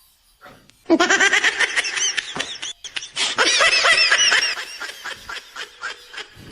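A man laughing in quick, high-pitched bursts that start about a second in and fade away near the end.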